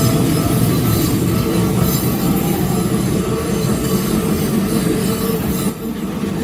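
Keikyu Line electric train passing over a level crossing close by: a steady loud rumble of the cars on the rails, with faint high squealing from the wheels. The noise dips briefly near the end.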